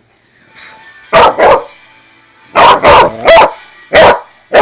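A dog barking angrily in short, loud barks, about seven of them, mostly in quick pairs. She is a freshly spayed dog, frustrated at being kept from licking her stitches.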